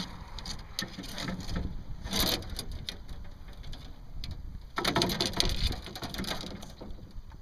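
Splashing, dripping and rustling as a large bass is lifted out of the water and handled in an aluminium john boat, with a louder burst of noise about five seconds in.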